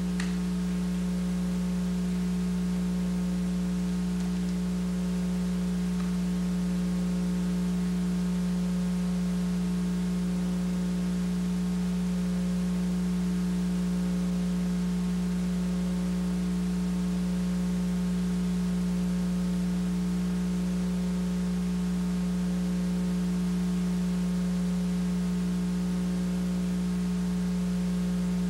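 Sustained electronic-sounding drone accompanying the dance: a strong, steady low tone with fainter tones above it, and a higher tone pulsing on and off about every two seconds.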